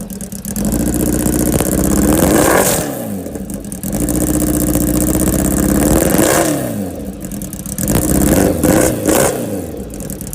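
Kawasaki H2R's supercharged inline-four revved repeatedly through its exhaust. The pitch climbs and falls back about three times, and the revs are held high between blips.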